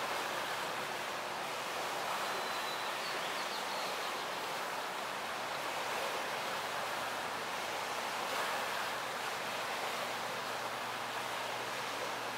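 Steady outdoor background rush, an even hiss-like wash with no distinct events and a faint low hum beneath it.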